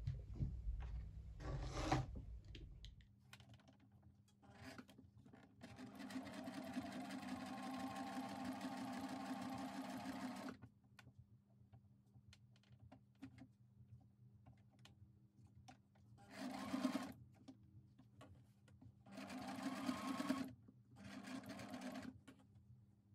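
White domestic electric sewing machine stitching through felt: one long run of about five seconds, then a few short bursts of stitching near the end as the fabric is turned between them. Knocks from handling the fabric come in the first seconds.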